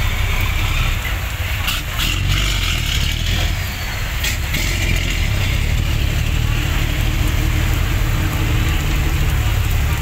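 Heavy diesel ten-wheeler truck engines running with a deep, steady rumble as decorated trucks pull away in the rain. A few short, sharp hisses or clicks come about two and four seconds in.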